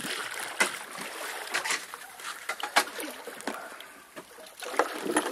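Hooked tope shark thrashing at the surface beside the boat: irregular splashes and slops of water.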